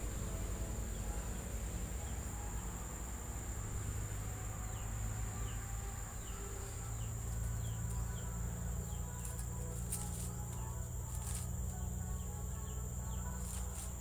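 Steady high-pitched insect drone over a low steady rumble. A series of faint, short falling chirps runs through the middle, and a few sharp clicks come near the end.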